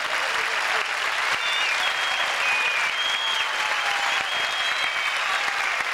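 Large stadium crowd applauding and cheering steadily, with high wavering whistle-like tones riding above the noise.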